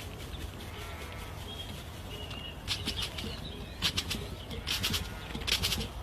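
Birds, with a few faint short calls, then from about halfway a run of sharp, irregular rustling bursts of flapping wings.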